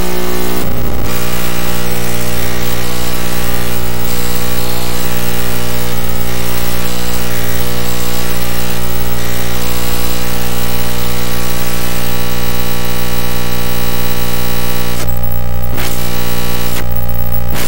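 Harsh, loud electronic buzz from a circuit-bent Sony Video Sketchpad toy, its video colour-channel signals buffered out as audio and modulated by audio-rate and low-frequency oscillators. It is a dense stack of steady buzzing tones over hiss. The tones grow more distinct about twelve seconds in, and the hiss drops out briefly twice near the end.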